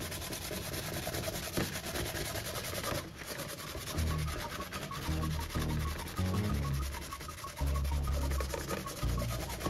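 Sandpaper on a wooden hand block rubbed back and forth over green filler on a black plastic part, a rough scratching in repeated strokes: the filler over the plastic repair being sanded smooth.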